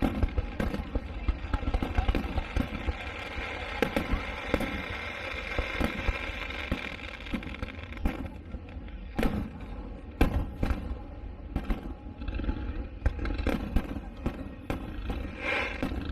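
Aerial fireworks going off in a dense run of bangs and crackles, with a few sharper, louder booms about nine, ten and fifteen seconds in.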